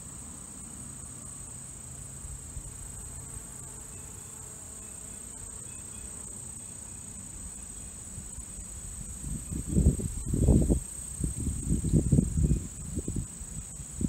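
Insects droning steadily at a high pitch. From about two-thirds of the way in, a run of loud, irregular low thumps and rumbles comes in over the drone.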